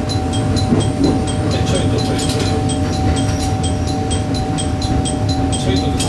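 Diesel railcar rolling slowly on jointed track as it pulls in for a station stop: a steady engine hum over a low running rumble, with a faint high ticking about two to three times a second.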